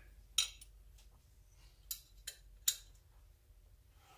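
A handful of short, sharp metallic clicks and clinks of hand tools being handled as a 5 mm tool is fetched, the loudest about half a second in and again near three seconds.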